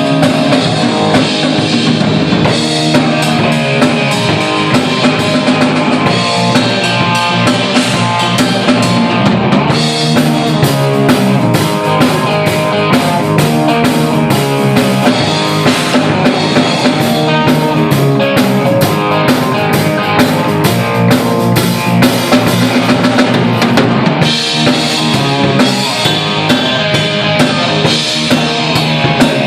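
A rock band playing with drum kit and guitar at full level, a steady beat of drum hits under sustained chords.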